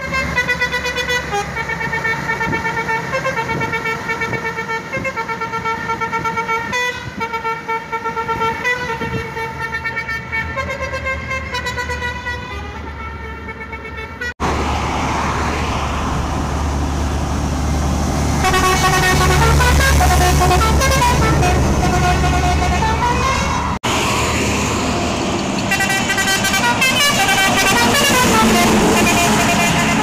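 Lorry musical horns (basuri/telolet type) playing tunes as a series of sustained multi-tone notes. About halfway through the sound cuts to a passing lorry whose diesel engine rumbles heavily under more horn melodies.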